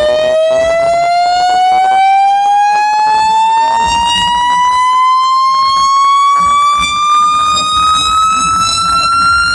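Car sound system's speaker box playing one continuous siren-like tone at very high volume, rising slowly and steadily in pitch throughout, harsh with overtones. It is a competition loudness (decibel) run.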